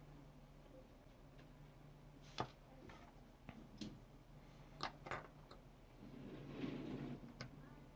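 A few light, sharp clicks and taps of small tools and parts being handled during hand soldering, the loudest about two and a half seconds in, over a quiet low hum, with a soft rustle near the end.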